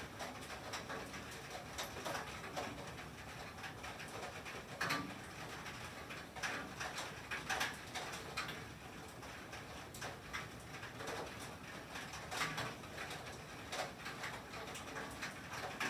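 Rain and sleet falling on a tin roof: a steady hiss with irregular sharp ticks on the metal, a few louder ones standing out here and there.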